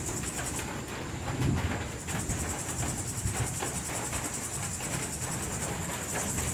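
Night chorus of crickets: a steady, high trill that dips for about a second near the start, over low, repeated croaks of frogs.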